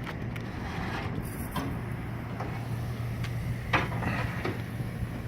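Short bursts of spray from a pump sprayer applying evaporator coil cleaner, several times over a steady low hum.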